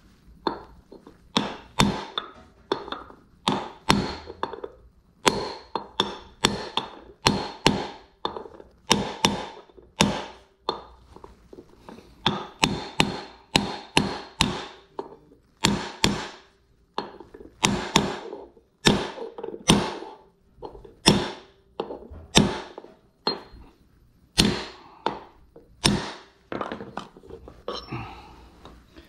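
A long, uneven series of hammer strikes, one to two a second, driving a part down during a rear differential coupling bearing job; some blows leave a faint metallic ring.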